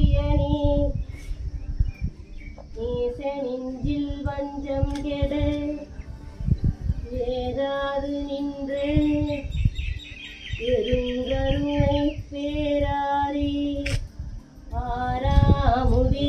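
Background song: a high voice singing long held notes that slide between pitches, over a low rumble.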